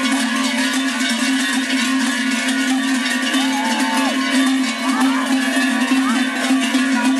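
Ski-race spectators ringing many cowbells at once, a dense unbroken clanging, with a few shouts rising above it now and then.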